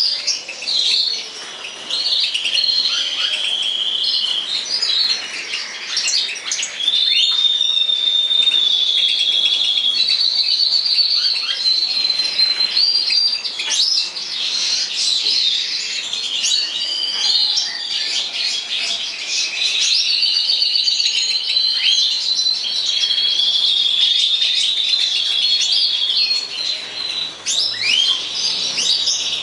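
European goldfinches of the large 'major' race singing: a running song of quick twitters, rapid trills and drawn-out buzzy notes, without a break.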